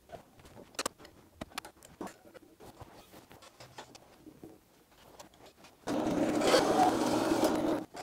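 Light metal clicks and knocks as parts of a horizontal bandsaw's steel vise are handled and set, then a much louder rough scraping noise for about two seconds near the end that cuts off suddenly.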